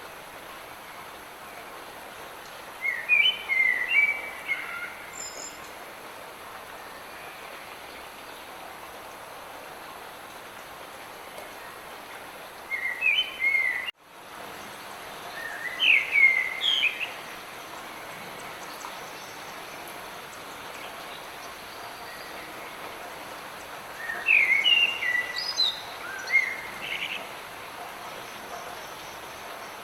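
Light rain falling as a steady hiss, with a songbird singing short phrases of quick chirps four times. The sound cuts out for an instant about halfway through.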